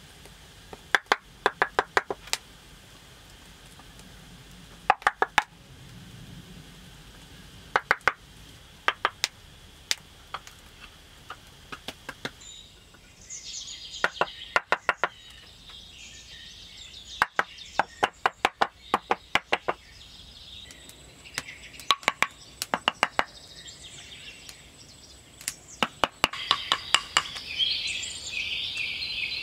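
Small wooden floor blocks clacking as they are set down and tapped into place, in quick groups of several sharp knocks every few seconds. Birds sing from about halfway, and a louder bird and insect chorus comes in near the end.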